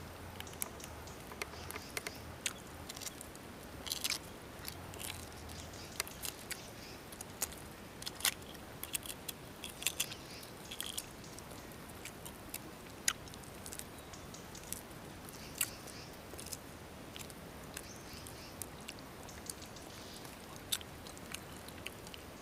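Close-up eating sounds: chewing boiled egg and peeling its shell by hand, heard as irregular small sharp clicks and crackles, thicker in the first half, over a faint steady hiss.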